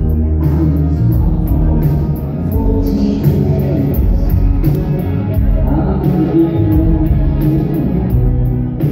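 Live rock band playing loudly, with guitars and drums and a steady cymbal beat.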